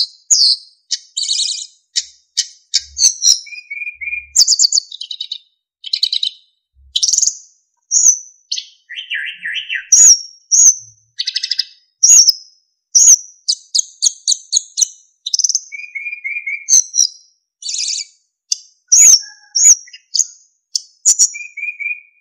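Sikatan emas flycatcher singing a rapid, varied song: short high chirps, trills and clear whistled notes in quick succession with brief gaps, plus a few lower whistled phrases.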